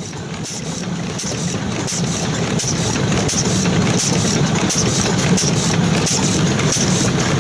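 Karui 4.5 hp single-cylinder petroleum (kerosene) stationary engine running slowly and evenly, with a regular beat of firing strokes and mechanical knocks. It fades in over the first couple of seconds.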